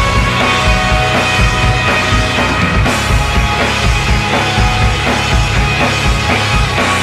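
Background music with a steady drum beat and sustained tones.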